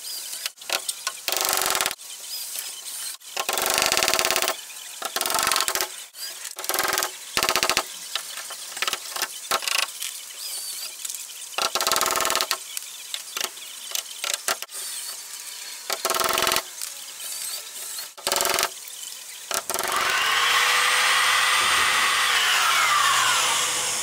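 Corded electric drill driving screws in many short runs, then a longer run in the last few seconds whose pitch drops as it slows.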